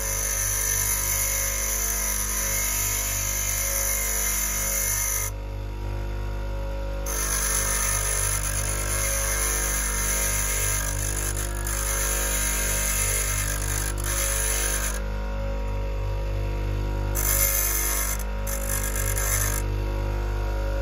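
Bench grinder running, its fine wheel grinding the edge of a high-speed-steel drill bit: a steady motor hum with a high hiss of steel on the wheel that breaks off for a second or two about five seconds in and again about fifteen seconds in.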